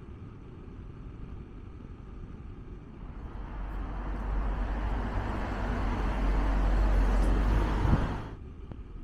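Road traffic: a motor vehicle on the street grows louder from about three seconds in, then its noise cuts off suddenly near the end.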